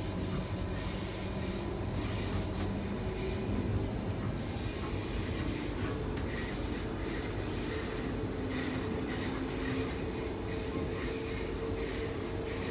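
Cabin noise of a Queensland Rail New Generation Rollingstock electric train running along the line: a steady rumble of wheels on track, with a steady tone that grows stronger about five seconds in.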